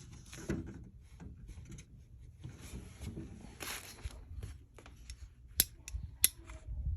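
Rustling and handling of a plug and cord, then two sharp clicks about five and a half and six seconds in as the plug of an old electric hair curler is pushed into a wall socket, not fully seated.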